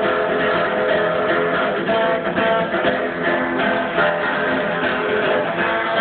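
Acoustic guitar strummed in steady chords: an instrumental passage of a live song, with no singing.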